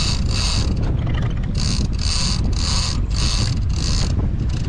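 Heavy offshore fishing reel whirring in short bursts, about one every half second with a brief pause near the start, as line is worked against a hooked fish. A steady rumble of wind and boat noise runs underneath.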